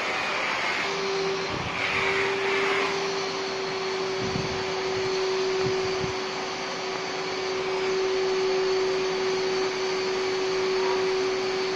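Canister vacuum cleaner running steadily with a constant hum, with a few dull knocks about halfway through.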